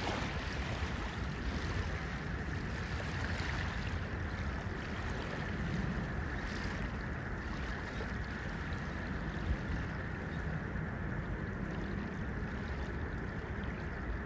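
Steady wind rumbling on the microphone over small river waves lapping in the shallows.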